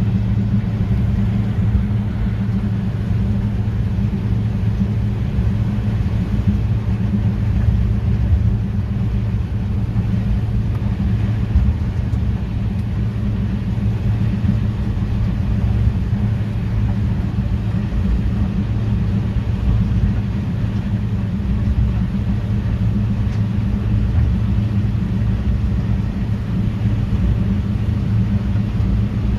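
New Holland TX66 combine harvester running steadily, a constant low machine hum that holds even throughout.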